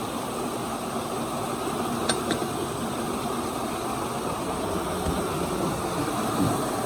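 Small mountain stream and waterfall rushing over rocks, a steady low rush of water. Two light clicks sound about two seconds in.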